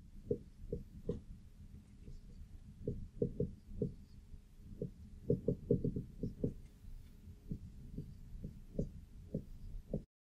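Soft, irregular knocks and taps of a marker against a whiteboard while writing out an equation, several to a second in clusters, over a faint steady hum.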